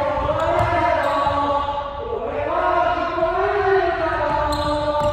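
Voices chanting a cheer in long, drawn-out syllables that rise and fall in pitch, carried on through the hall.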